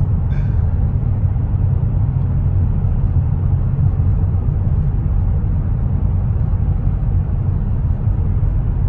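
Steady road and engine noise heard from inside a Ford Flex's cabin while driving through a highway tunnel: an even, low rumble that does not change.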